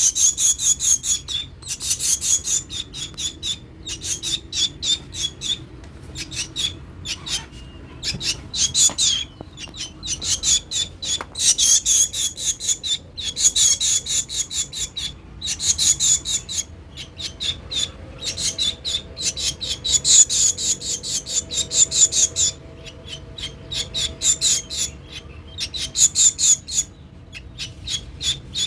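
Baby bird giving harsh, raspy begging chirps in rapid trains of about seven a second. The bursts last a second or two and come again and again with short pauses.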